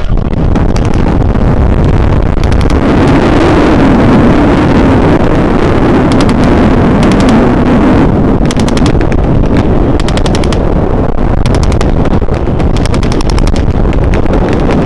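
Airshow WWII battle reenactment: aircraft engines drone overhead with heavy wind rumble on the microphone, louder from about two to eight seconds in. Several bursts of rapid machine-gun blank fire come mostly in the second half.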